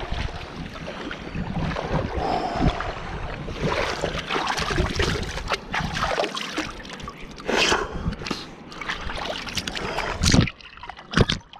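Sea water sloshing and splashing around a camera held at the water's surface, with splashes as a diver scoops handfuls of water onto his face.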